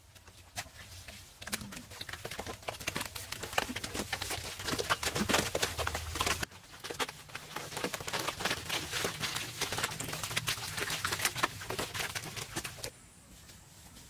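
A dense, irregular run of sharp clicks and knocks over a low hum, breaking off abruptly twice.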